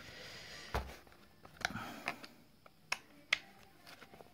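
Light scattered clicks and a knock about a second in, from a steel Allen key being fitted into a bolt and tapping against the black plastic end housing of a Hitachi NR90GC2 gas nailer. A short soft hiss at the start.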